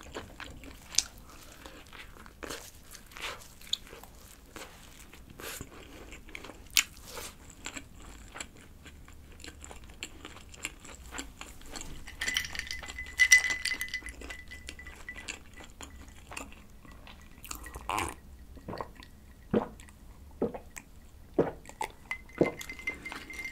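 Close-miked chewing of a fried chicken-breast burger: small crunchy bites, wet mouth sounds and swallowing. Later, a glass of iced cola is picked up and drunk from.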